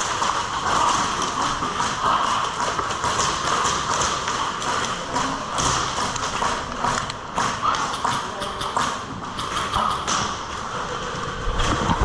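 Footsteps on a hard floor with gear knocking and rubbing: an airsoft player on the move, with many quick taps and thuds throughout.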